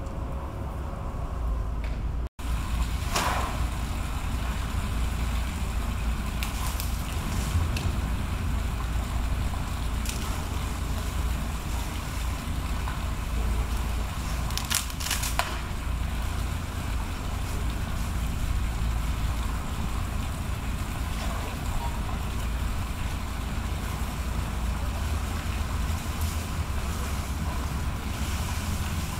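Asian elephants snapping and crunching leafy branches as they feed: a few short sharp cracks, two close together in the middle, over a steady low outdoor rumble. The sound cuts out for an instant about two seconds in.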